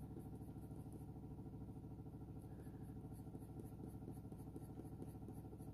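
Faint, steady low electrical hum: room tone with no distinct events.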